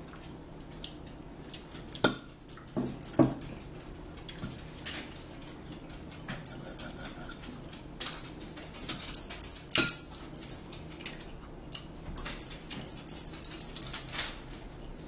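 A pet dog making sounds now and then, mixed with forks clinking and scraping on plates as two people eat, with the loudest short sharp sounds about two and three seconds in.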